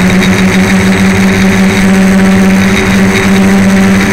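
DJI Flame Wheel 450 quadcopter's stock electric motors and propellers humming steadily in flight, a loud constant drone with a hiss of rushing air, as picked up by the camera on board.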